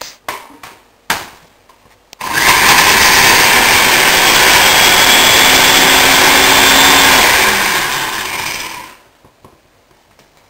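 Countertop blender with a glass jug running, blending mince pies into a smoothie: a few light knocks, then the motor starts abruptly about two seconds in, runs loud and steady for about six seconds, and winds down and stops near the end.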